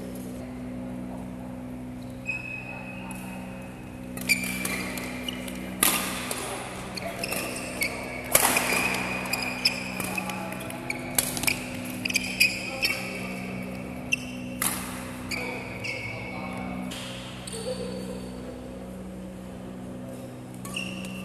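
Badminton doubles rally: a string of sharp racket strikes on the shuttlecock, with brief squeaks of court shoes, starting a few seconds in and dying away near the end. A steady low hum runs underneath, in a large reverberant hall.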